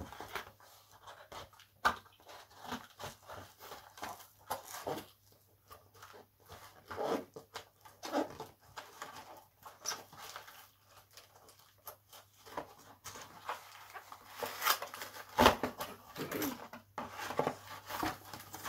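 Scissors snipping plastic ties and a cardboard toy box with its plastic packaging being handled: scattered clicks, rustles and scrapes, with one sharp knock a few seconds before the end.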